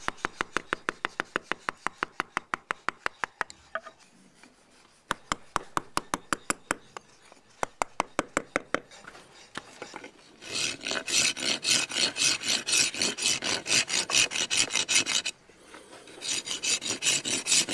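Hand rasp filing a carved stone figure where it joins its wooden branch horns, worked back and forth in quick even strokes, about six a second. The strokes come in runs with short pauses between them, and from about ten seconds in they grow louder and harsher.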